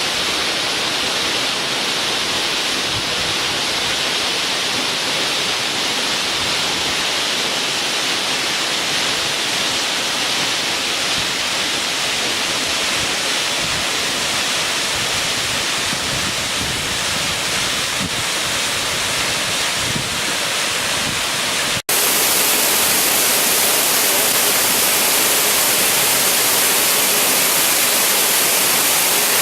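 Waterfall water rushing steadily. About two-thirds of the way through it breaks off abruptly and returns louder and brighter.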